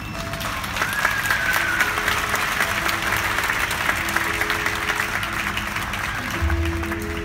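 Audience applauding over background music, with a short whistle from the crowd about a second in; the clapping fades near the end as the music comes up.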